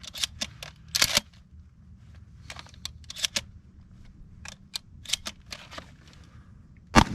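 Remington 870 pump-action shotgun being loaded from empty: a series of sharp metallic clicks and clacks as shells are pushed into the magazine and the action is worked. Near the end comes one loud blast, the first buckshot round fired.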